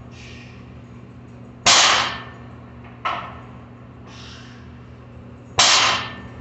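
Deadlift reps with a loaded barbell of about 210 lb: the bar comes down hard on the floor twice, about four seconds apart. A lighter knock as the bar leaves the floor and a short hiss come between the impacts, over a steady low hum.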